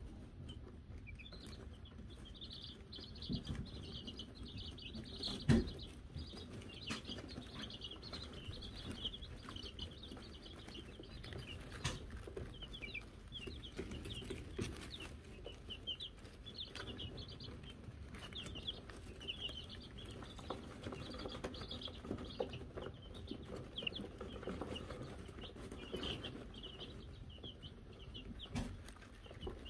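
A brood of Wyandotte chicks peeping, a constant stream of short high chirps, with a few soft knocks and one louder knock about five and a half seconds in.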